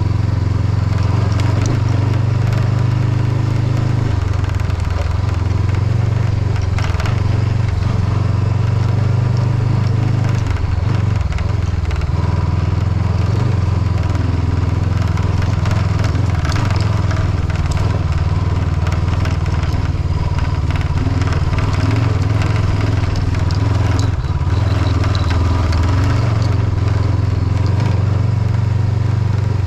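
Honda CB500X's parallel-twin engine running steadily on the move, its revs easing off for several seconds and then picking up again about twelve seconds in. Over it is a continuous crackle and clatter from gravel under the tyres and a windshield rattling loose because it has lost one of its mounting screws.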